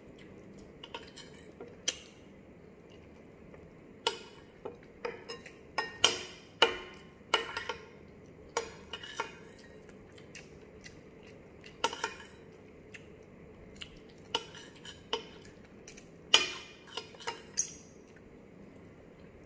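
Metal fork and spoon clinking and scraping against a plate during a meal: irregular sharp clinks, a few at a time, some louder than others.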